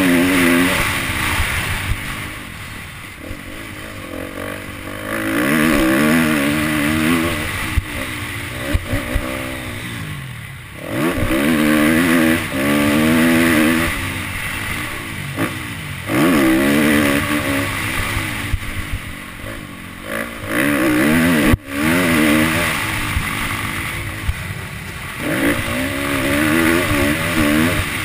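Motocross dirt bike engine revving hard and backing off over and over as it is ridden round the track, the pitch climbing as the throttle opens and falling when it shuts, heard from the rider's helmet camera. A sharp knock about two-thirds of the way through.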